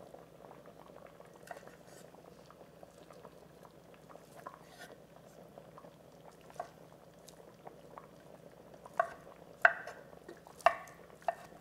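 Kitchen knife chopping cooked ham on a cutting board: a few soft clicks as the meat is picked over by hand, then four sharp knocks of the blade on the board in the last three seconds. A faint steady hiss runs underneath.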